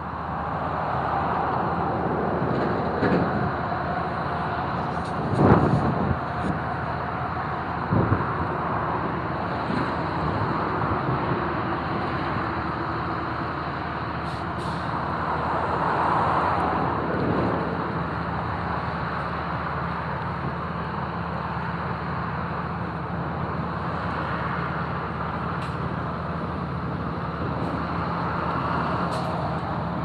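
Construction excavation machinery working: engines running steadily with a low hum, with two heavy clanks about five and eight seconds in.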